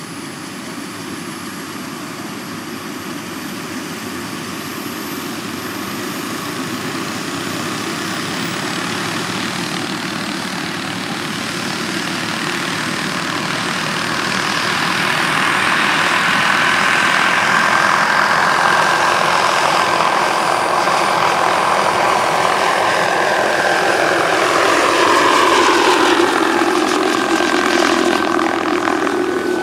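Small gas-turbine engine and rotor of a radio-controlled scale Bell AH-1 Cobra helicopter spooling up, its thin high whine rising in pitch, then growing steadily louder as it lifts off and hovers. Near the end the pitch falls as the helicopter flies past overhead.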